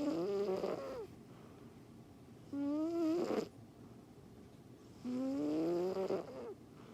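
Snoring with a whistling, nasal pitch: three snores about two and a half seconds apart, each a tone that rises in pitch over about a second. The first is already under way at the start, the others come about two and a half and five seconds in.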